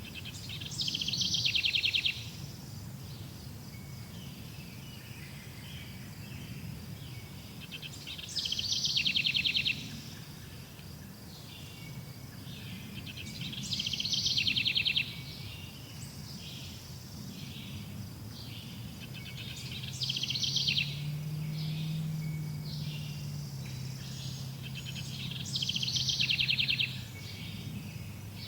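A songbird repeating the same short high song five times, about every six seconds, each phrase about a second long and ending in a fast trill, over a steady low rumble.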